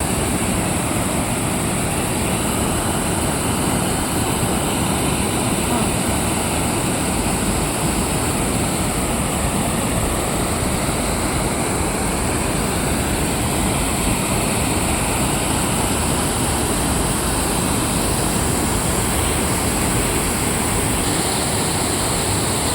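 Water pouring over a man-made drop in a cement canal, a steady, unbroken rush of falling water.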